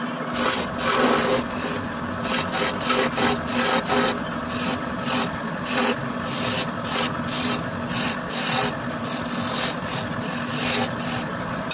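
Lathe running with a steady hum while a tool scrapes against the spinning chess pawn, giving uneven bursts of rasping hiss several times a second.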